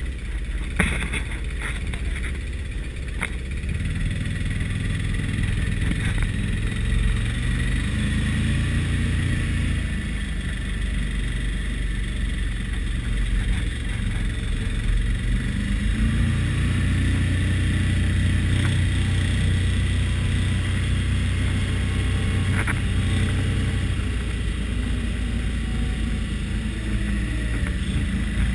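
ATV engine running as it is ridden, its note rising and falling with changes in speed. A sharp knock about a second in and a few lighter knocks.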